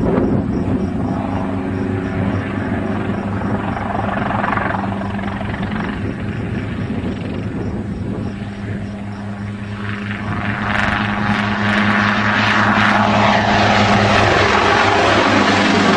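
Light helicopter flying low, its engine and rotor running steadily, growing louder about ten seconds in as it comes close.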